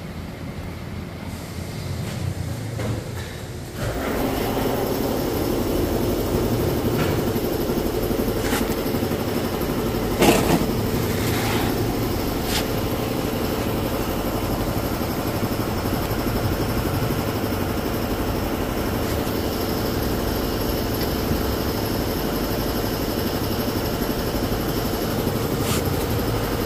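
Steady mechanical running noise of shop machinery, starting about four seconds in, with a low pulsing hum and held tones. A few light clicks and one sharp knock come about ten seconds in.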